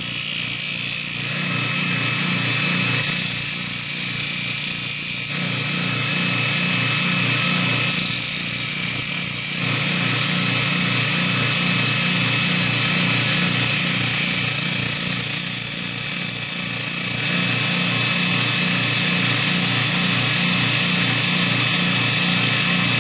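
Baldor 1/2 hp bench grinder driving a 100-grit belt on a 10-inch expander wheel, with the steel fuller held to the belt to grind off a small sharp edge. A steady motor hum runs under a grinding hiss that grows and eases several times as the pressure on the belt changes.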